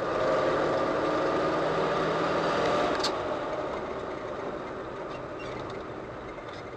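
A car's engine and road noise heard inside the moving car, steady, easing off a little after about three seconds, with a short click about three seconds in.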